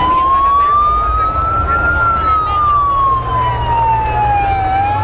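Emergency vehicle siren in a slow wail, rising for about two seconds, falling for nearly three, then starting to rise again near the end, over the noise of a dense crowd.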